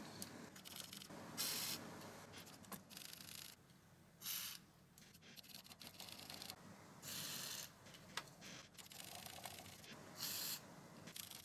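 Aerosol contact cleaner sprayed through an extension straw into slide potentiometers in four short hisses, with faint rubbing between them as the sliders are worked.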